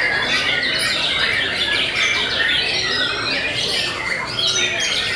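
Several caged white-rumped shamas (murai batu) singing at once: a dense, unbroken tangle of fast whistled and chattering phrases.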